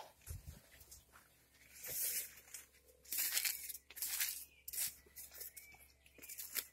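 Irregular rustling swishes, about one a second, as leaves and stems of dense porang plants brush past someone walking through the plot.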